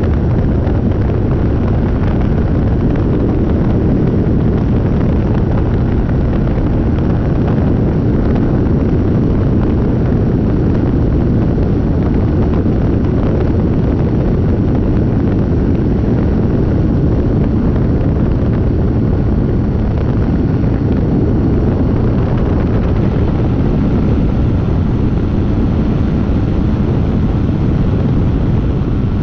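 Steady, loud rush and rumble of airflow over the microphone of a tail-mounted camera on a small aircraft in flight. The drone of the aircraft's engine and propeller runs faintly underneath.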